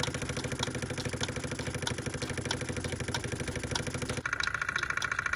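Mamod Minor 1 single-cylinder oscillating live steam engine running steadily with rapid, even exhaust beats, while the Lego stamp mill it drives clicks about every two-thirds of a second as the stamp drops. About four seconds in, a steady higher whine joins the running sound.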